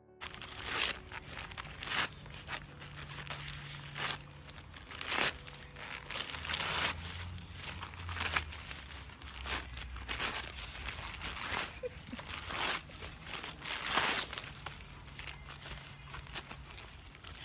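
A blue heeler tearing and crumpling striped wrapping paper off a ball-shaped present with its paws and teeth: a long run of ripping and crinkling noises.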